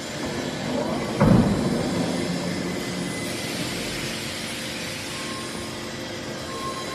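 Factory-floor machinery of an automated forging line running steadily, with one heavy low thud about a second in, like a press or hammer blow.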